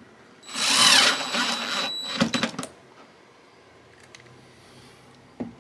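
Cordless drill driving a screw to fasten a bus bar to a plywood board: one run of the motor lasting about a second and a half with a steady high whine, followed by a few sharp clicks.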